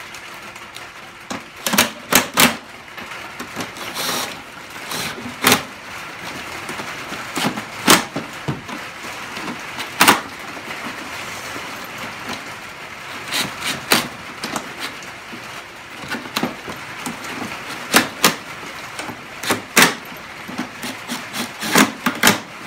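Knocks and clicks of a concrete bench-leg mold being handled and bolted together: its halves, bolts and a cordless impact driver set down and tapped against the bench. The knocks come irregularly, a few in quick succession near the end, over a steady background hiss.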